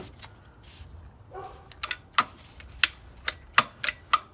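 Ribbed accessory drive belt being worked off the slackened alternator pulley by hand, giving about six sharp clicks and slaps at uneven spacing in the second half, with a brief faint squeak a little earlier.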